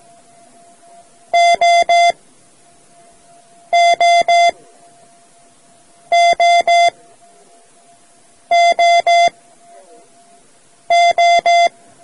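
Morse code practice tone sending the letter O, three equal long beeps (dah-dah-dah), five times over at even intervals of about two and a half seconds.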